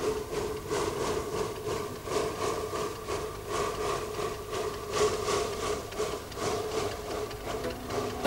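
Narrow-gauge wood-fired steam locomotive working a timber train, its exhaust chuffing in an even rhythm of about three beats a second over a steady hiss of steam.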